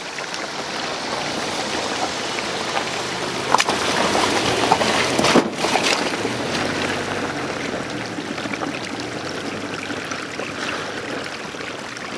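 A Subaru driving through a shallow, rocky creek crossing: engine running low, tyres splashing through water and crunching over stones, with a few sharp knocks. It is loudest about four to five seconds in, then fades as the car pulls away.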